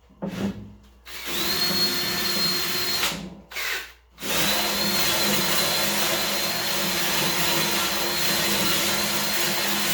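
A handheld electric power tool cleaning rust off a steel hood hinge. It starts about a second in and runs with a steady high whine, stops near three seconds and winds down, then starts again just after four seconds and runs steadily.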